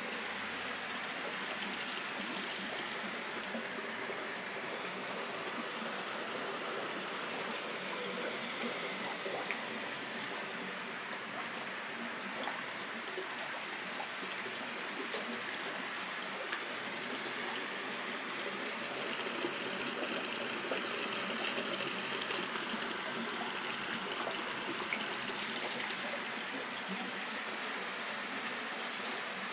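Water splashing and trickling steadily into a koi pond, with a few small splashes here and there.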